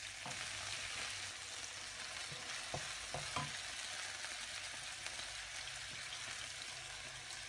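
Sliced chicken and chopped garlic sizzling steadily in olive oil in a non-stick frying pan, stirred with a wooden spatula; a few soft knocks of the spatula against the pan about three seconds in.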